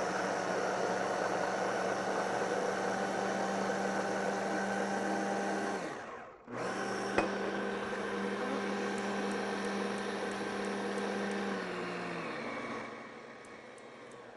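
Electric hand blender with a chopper bowl running, puréeing tomatoes with water into a sauce for stuffed vegetables. The motor hum stops briefly about six seconds in, starts again with a click, then drops in pitch and goes quieter near the end.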